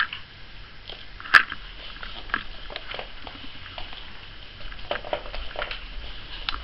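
Ragdoll kittens playing on a wooden floor: scattered light clicks, scrabbling paws and small knocks of toys, with one sharp click about a second and a half in.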